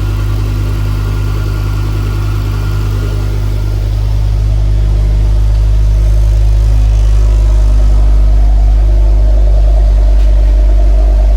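Ford Focus ST225's turbocharged five-cylinder engine idling steadily without misfire, growing somewhat louder about four seconds in.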